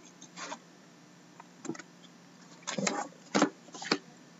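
A shrink-wrapped cardboard trading-card box handled on a wooden desk: a few short rustles and knocks as it is slid and then picked up and turned over.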